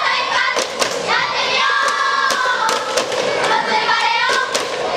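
A group of girls chanting a cheer in long drawn-out phrases, with sharp hand claps about twice a second.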